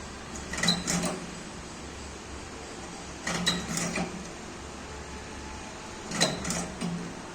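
Battery spot welder firing on battery cells: groups of two or three sharp clacks about every three seconds, one weld pulse after another, over a low steady hum.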